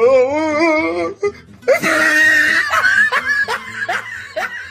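Meme sound-effect clip of a person laughing. The laugh starts as a quavering, wavering voice for about a second, then breaks into a louder outburst and a run of short falling 'ha' notes, about three a second.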